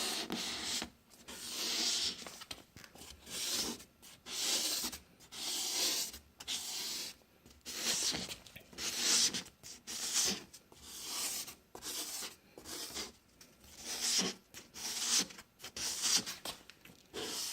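A lubricated abrasive pad from a headlight restoration kit scrubbed hard in diagonal strokes across a foggy plastic headlight lens, a scratchy rubbing that comes in strokes about once a second. It is the first, coarse stage meant to take off the yellowed, oxidised surface of the lens.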